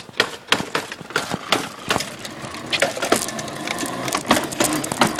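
Irregular sharp clicks and rattling knocks, several a second, from riding an electric scooter while filming with a handheld recorder.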